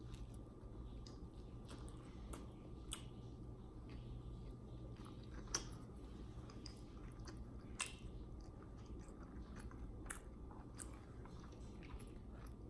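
Faint chewing of a spicy tuna sandwich on soft white bread, with small wet mouth clicks scattered throughout, over a steady low hum.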